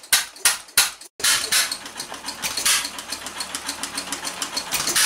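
1913 Stickney 1 3/4 HP hit-and-miss engine running, beating out sharp, regular strokes about three a second. After a short dropout about a second in, a quicker clatter of ticks over a steady low hum, with a louder puff every second or so.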